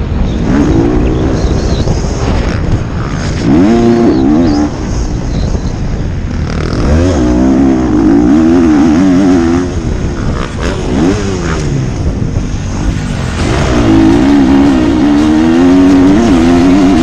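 Motocross bike engine at full race pace, its pitch rising and falling again and again with the throttle and gear changes, the loudest stretches about 4 seconds in, in the middle and near the end. Heavy wind rush over the helmet-mounted microphone runs underneath.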